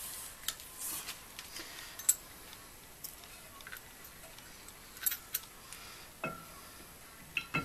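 A handful of light metallic clicks and clinks, spaced irregularly, as a disc brake caliper with its pads is handled and worked onto the rotor and mounting bracket.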